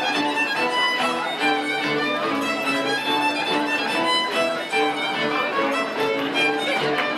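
Polish highlander (Góral) folk band playing a lively dance tune: a fiddle leads over a string bass.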